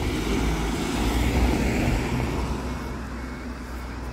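A van driving past at road speed, its engine and tyres on wet tarmac swelling to their loudest about a second and a half in, then fading away.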